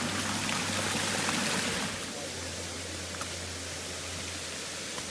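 Steady rush of running water from a stream or small waterfall. It is louder for about the first two seconds and then drops to a softer, even flow.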